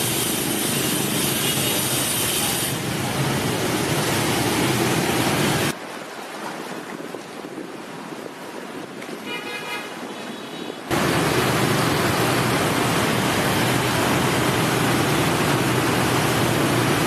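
Steady city traffic noise that drops to a quieter stretch a third of the way in, where a horn toots briefly, before loud steady traffic noise returns.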